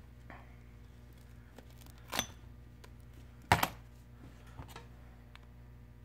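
Phone parts being handled on a metal work mat: a short scrape about two seconds in, then a sharper clack about a second later, followed by a few faint ticks, over a low steady hum.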